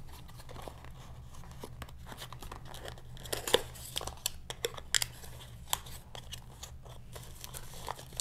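Plastic packaging crinkling and rustling as the receiver's setup microphone and its parts are unwrapped by hand. Irregular crackles run throughout, with a few sharper clicks and crinkles about halfway through.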